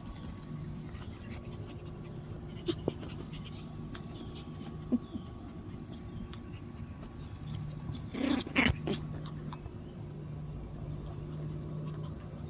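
Toy poodle puppies, with one short puppy yelp or bark about two-thirds of the way in, over a steady low hum and a few small clicks.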